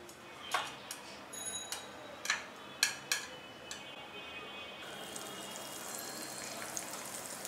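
Wooden chopsticks clicking and tapping against the electric waffle iron's plates as cooked waffles are lifted out. From about five seconds in there is a steady sizzle as fat is brushed onto the hot nonstick plates with a silicone brush.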